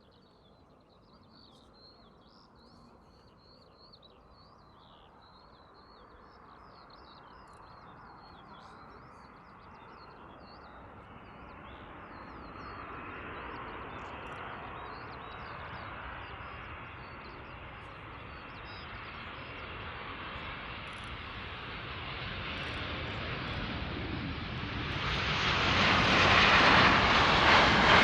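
Large jet airliner approaching to land, its engine noise growing steadily from faint to loud and swelling sharply in the last few seconds. Birds chirp in the background during the first half.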